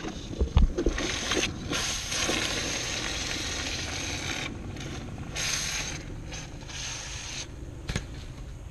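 Hot aluminum casting hissing and sizzling as it is quenched in a tub of water, in long spells of hiss that stop and start as it is dunked. A few knocks about half a second in.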